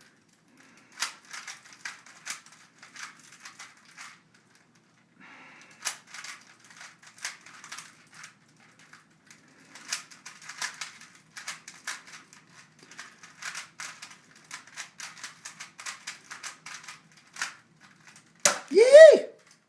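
Rubik's cube being twisted quickly by hand: bursts of rapid plastic clicking and clacking, with a short pause about four seconds in. Near the end comes a short, loud vocal cry that rises in pitch.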